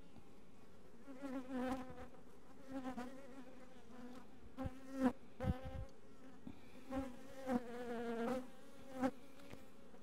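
Honey bees buzzing close past the microphone in several passes over an opened hive, a pitched hum that wavers and swells as each bee flies by; the colony is not terribly happy at being opened. A few sharp knocks about halfway through from the wooden frames and the steel hive tool as frames are lifted out.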